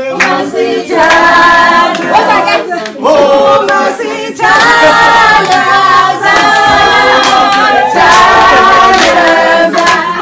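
A group of voices singing together in loud phrases, with hand claps keeping time.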